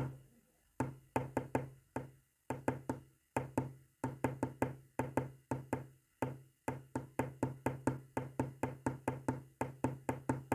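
Rapid knocks, about five a second, each with a brief low ring, coming in groups of different lengths separated by short pauses: a code being tapped out, Morse code by the look of the video.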